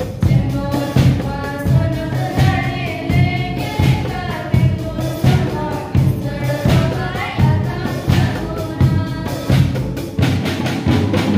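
A hymn sung by voices with a steady drum beat and low instrumental accompaniment.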